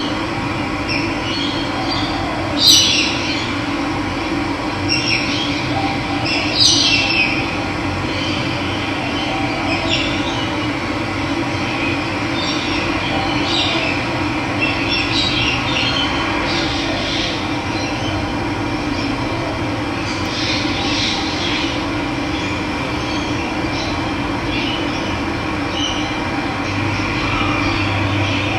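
Steady rush of running water with wild birds chirping over it, short calls every second or two, the loudest two a few seconds in and again around seven seconds.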